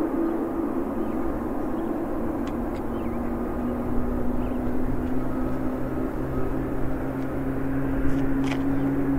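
Boeing 777 jet engines running as the airliner rolls along the runway: a steady rumble with a humming tone that rises slowly.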